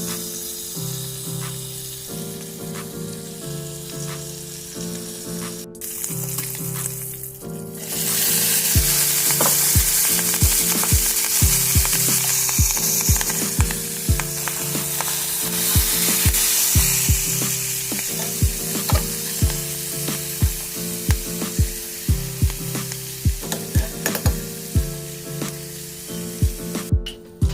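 Beef sizzling and frying in a pan, the sizzle growing louder about eight seconds in, over soft background music.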